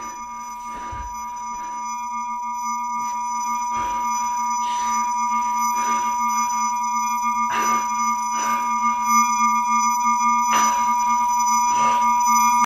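Sound-design drone of steady electronic tones: a high ringing near 1 kHz over a low hum, swelling steadily louder and then cutting off abruptly. Short breathy gasps break through it every second or so.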